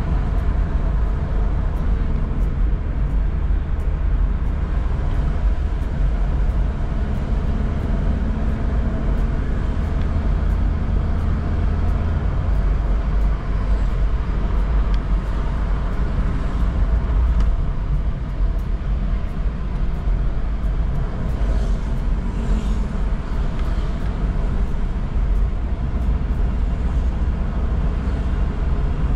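Steady low engine and tyre rumble of a Toyota car driving along a road, heard from inside the cabin.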